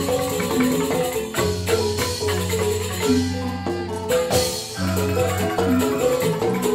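Balinese joged bumbung gamelan music: bamboo xylophones played with mallets in fast, repeating note patterns over a steady low bass line.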